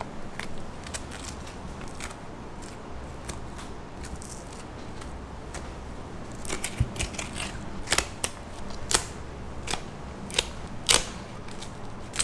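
Metal kitchen utensils clicking and clacking while beef is handled. There are only a few clicks at first, then a quick, uneven run of sharp clicks over the last half, all over a low steady hum.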